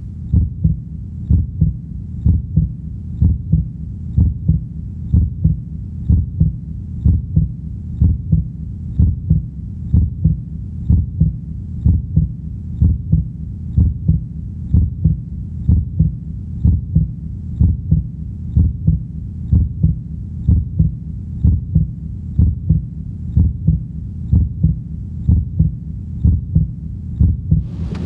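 Heartbeat, beating in a steady, even rhythm, low in pitch.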